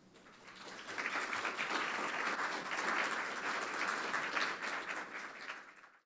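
Audience applauding, swelling over the first second and fading out near the end.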